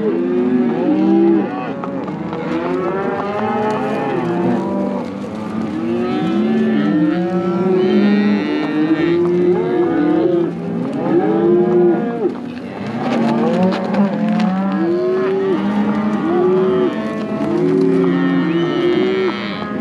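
A herd of cattle mooing, many calls overlapping one another without a break.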